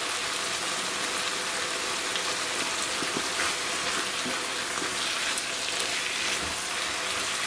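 Fried rice with mushrooms and mixed vegetables sizzling steadily in a hot pan, an even frying hiss.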